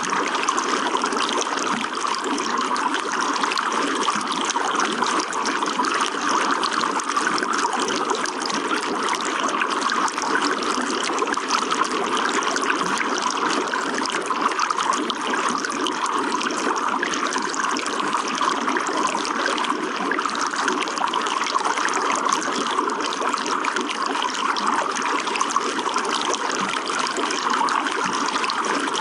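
Running water trickling and splashing steadily, an even rushing hiss that never breaks or changes.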